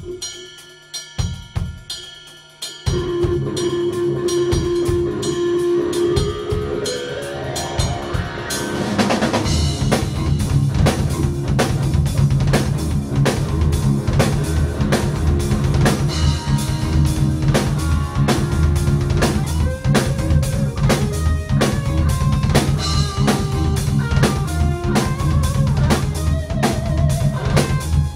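Instrumental rock trio of electric guitar, bass guitar and drum kit playing. A few separate drum hits open it, a held note comes in about three seconds in with a rising slide after it, and the full band enters about nine seconds in with a steady drum and bass groove under the guitar.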